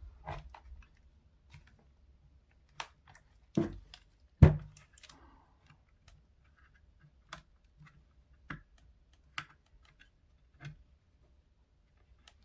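Scattered clicks and knocks from a plastic keyboard being handled and turned over, with two louder knocks about three and a half and four and a half seconds in.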